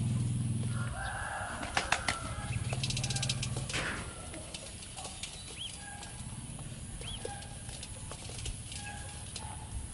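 Baby ducklings peeping in short, scattered high calls. A few sharp clicks come about two seconds in, and a low hum runs under the first second.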